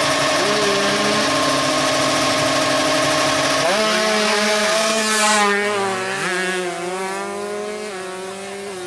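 Two-stroke drag bike engines running fast and steady, then revving up and down in pitch from about four seconds in. The sound grows quieter over the last few seconds.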